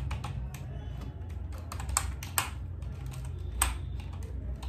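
Typing on a computer keyboard: a run of irregular key clicks, with a few sharper keystrokes about two, two and a half and three and a half seconds in.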